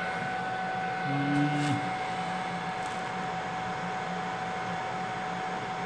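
Regeni BK-350S BGA rework station's upper and lower hot-air heaters running mid-heating cycle: a steady blowing hiss with a steady whine through it. A short low hum sounds about a second in.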